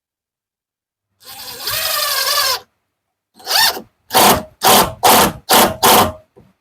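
Power drill driving a screw: one run of about a second and a half with the motor pitch wavering under load, then a short spin and five quick trigger pulses as the screw is snugged down without stripping it.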